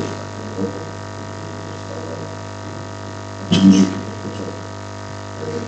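Steady electrical mains hum, with a few short bursts of a man's voice into a handheld microphone, the loudest a little past halfway.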